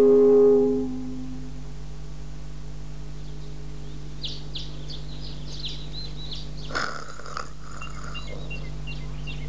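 A held musical tone fades out within the first second. Then birds chirp in quick, short downward calls, several a second, for a dawn scene. About seven seconds in, a sleeping cartoon character gives a brief breathy snore.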